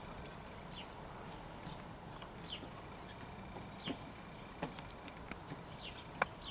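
Small birds chirping in short, quick falling notes scattered throughout, with a few sharp clicks in the middle and near the end.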